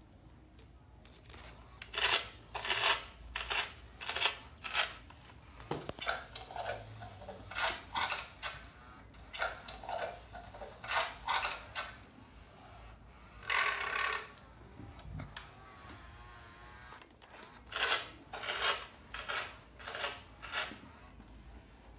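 Playskool Hasbro robotic triceratops toy playing crunchy, rasping munching sounds from its speaker after being fed, in quick clusters of bites starting about two seconds in. There is a longer, louder burst about two-thirds of the way through.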